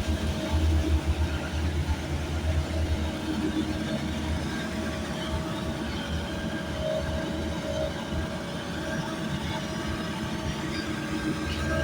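Heavy machinery rumbling steadily, with a throbbing low drone and several steady whining tones. The throb eases after about three seconds and swells again at the end.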